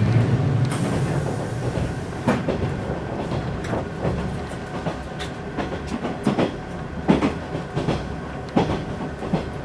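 Interior running noise of a 185 series electric multiple unit at speed: a steady rumble of wheels on rail, with sharp clickety-clack strikes from the wheels over the track every second or so. The rumble eases a little over the first couple of seconds.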